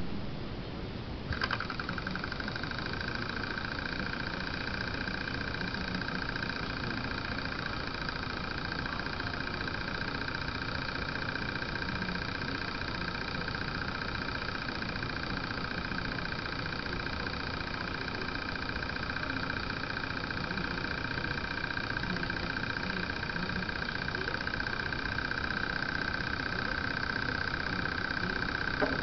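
Böhm HB20 hot-air Stirling engine running steadily, its flywheel and linkage turning with a continuous mechanical hum and a high whine. The sound sets in with a click about a second in.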